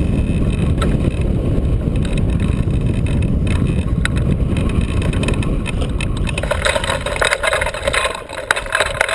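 Airflow buffeting the microphone of a camera mounted on a hang glider's wing as it glides in low to land. About seven seconds in, the rush drops away as the glider slows for touchdown, and clicks and rattles from the frame and harness take over.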